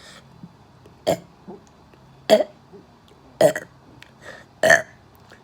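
A person burping over and over: four loud, short burps about a second apart, with a few smaller burps in between.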